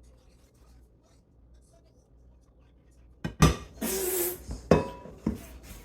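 Kitchenware clattering: after a few quiet seconds, a run of sharp knocks and a short scraping rush as thick cake batter is worked out of the mixing bowl into a loaf pan, then more knocks.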